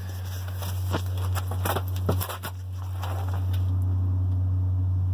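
A steady, very low-pitched hum heard under a Jeep Cherokee XJ whose engine is off and battery removed; its source could not be pinpointed. It grows louder about three and a half seconds in, with some rustling and a few clicks between about one and two and a half seconds in.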